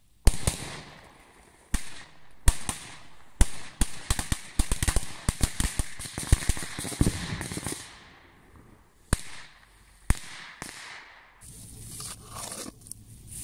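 Firecrackers going off in a fast, irregular string of sharp bangs, each with a short echo, thickest in the middle and thinning to a few last cracks. Near the end, quieter rustling and handling noise.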